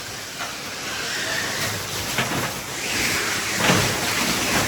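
Crushed ice from an ice-crushing machine pouring into a fishing boat's hold: a steady rushing noise with a few knocks.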